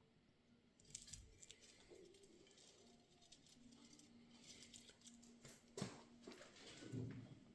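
Mostly near silence with faint, scattered taps and scrapes of steel leaf-spring parts being handled, and a slightly firmer knock about six seconds in.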